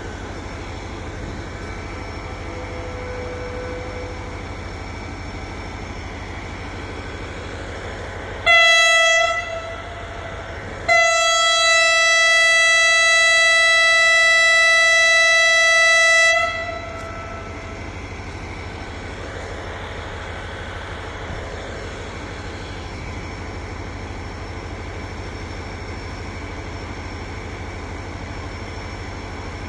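Diesel locomotive horn sounding twice on one steady note: a short blast about eight seconds in, then a long blast of about five seconds. A steady low hum runs underneath.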